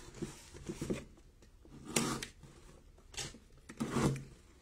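A blade slicing through the packing tape on a small cardboard box, in a few short strokes about a second apart, with light ticks of the cardboard being handled.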